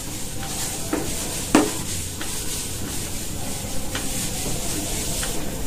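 A pen or marker scratching across a writing surface as a line is drawn: a steady rubbing stroke, with a couple of light taps about a second and a half in.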